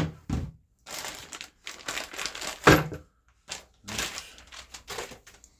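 Packing material being crumpled and pushed aside on a work table, a rustling crinkle in two stretches, with a sharp knock about two and a half seconds in.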